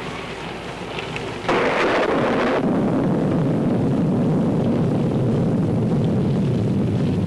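Storm sound effect on a 1930s film soundtrack: rain falling, then a sudden thunderclap about a second and a half in, followed by a long, low rumble of thunder.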